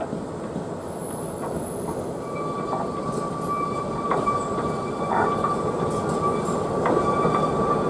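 Narrow-gauge diesel locomotive hauling passenger cars approaches, its engine and wheels growing steadily louder. A steady high wheel squeal sets in about two seconds in, with a few scattered clicks from the wheels on the rails.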